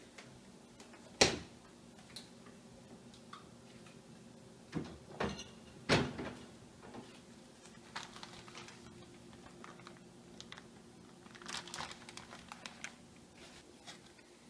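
Dishwasher being opened and handled: a sharp click of the door latch about a second in, a few knocks and clatters around five to six seconds, and a run of light clicks and rattles near the end, over a faint steady hum.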